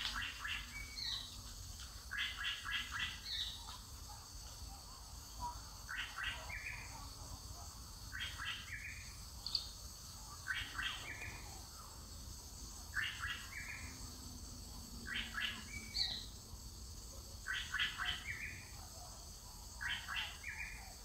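A bird singing the same short phrase again and again, roughly every two seconds: a quick run of notes ending on a lower note.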